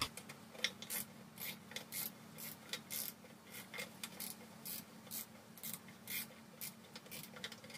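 Hand ratchet wrench clicking in short strokes while loosening engine bolts. There are a few quiet ratcheting clicks a second, unevenly spaced.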